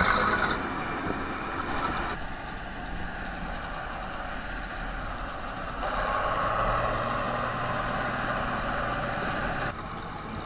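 Bizon combine harvester's diesel engine running steadily. The sound changes abruptly about two seconds in, again near six seconds and near the end.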